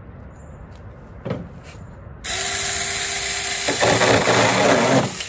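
Saker mini cordless electric chainsaw starting suddenly with a steady whine about two seconds in. It then gets louder and rougher as the chain cuts through a piece of wood about an inch thick, going through it near the end.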